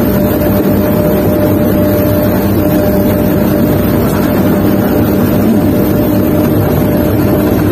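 Sumitomo SH250 excavator's diesel engine and hydraulics running steadily as the arm and bucket are worked, heard from inside the cab, with a steady whine over the engine drone.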